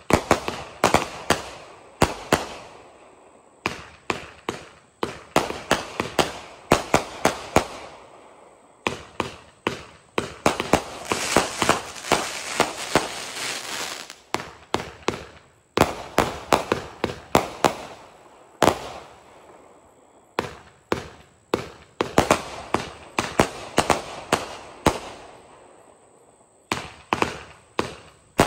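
Legend Fireworks 'Open Fire' one-minute fireworks cake firing: rapid volleys of sharp bangs with short lulls between them, densest about ten to fourteen seconds in.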